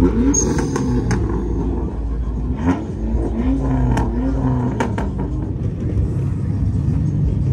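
Car engine revving in repeated rises and falls over a steady low rumble, with a few sharp snaps scattered through.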